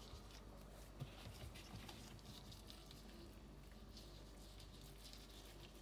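Near silence: faint hiss with a few soft taps and rustles between about one and two seconds in, from a plastic-gloved hand peeling dough scraps off a wooden board.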